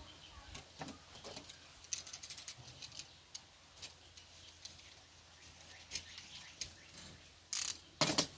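Hand tools scraping and picking at the dry fibrous husk of a sprouted coconut: irregular scratches and clicks, a quick run of ticks about two seconds in, and two louder scrapes near the end.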